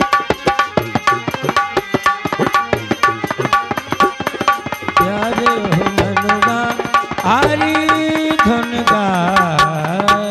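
Live folk dance music: a fast hand-drum rhythm runs throughout, and about halfway a held, wavering melody line comes in on top, gliding up about three-quarters of the way through.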